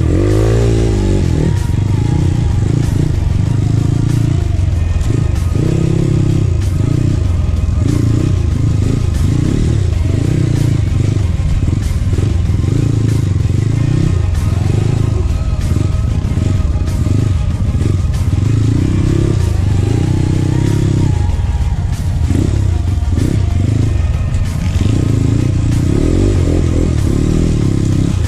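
Trail motorcycle engine running under changing throttle, its pitch climbing quickly about half a second in.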